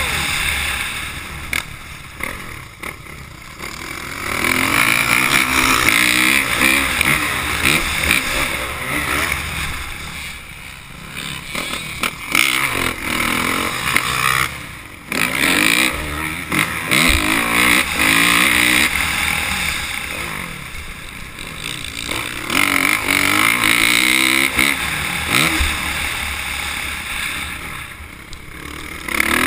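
Motocross dirt bike engine revving up hard and falling off again and again as it is ridden around a dirt track, with several quieter spells where the throttle is closed, and a couple of short knocks.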